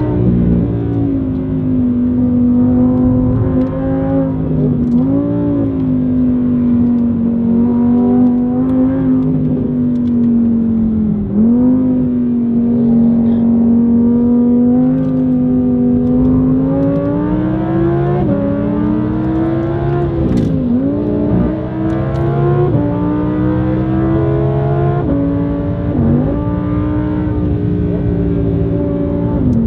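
Audi R8 V10's 5.2-litre V10 through an ASG aftermarket valve exhaust, heard from inside the cabin, running hard and loud on track. The engine note climbs and falls with throttle and gear changes. Several quick dips in pitch and a sudden jump up about two-thirds of the way through sound like shifts.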